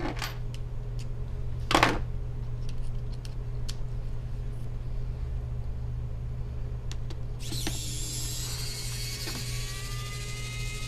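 Steady low hum with a few clicks, the loudest a sharp click about two seconds in. A small electric motor starts whining suddenly near the end, holding a steady pitch.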